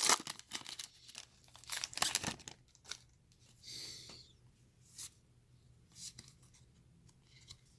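Foil wrapper of a baseball card pack being torn open and crinkled, with a short tearing hiss about four seconds in. Light clicks and rustles of cards being handled run through it.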